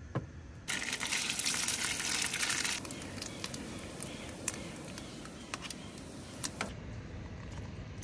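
Slices of beef loaf frying in hot oil in a non-stick pan: a loud sizzle that settles after a couple of seconds into a steadier sizzle with scattered crackling pops, then cuts off abruptly near the end.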